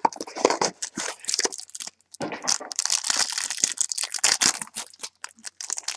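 A trading-card mini box and its pack wrapper being torn open by hand: dense, irregular crinkling and tearing, with a brief pause about two seconds in.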